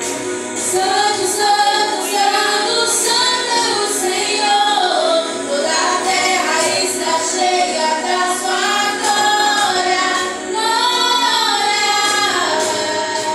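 A group of female voices singing a worship song together in a sustained, flowing melody.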